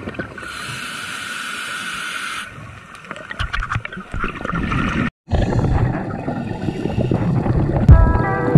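Scuba regulator breathing heard underwater: a steady hiss of an inhaled breath, then the low gurgling rumble of exhaled bubbles. Music comes in near the end.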